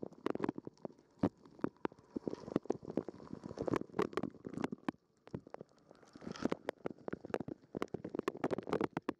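Dishwasher wash cycle heard from inside the machine: water from the spray arms splashing irregularly against the dishes and the camera, with many sharp spatters and knocks. The spray lets up briefly about five seconds in.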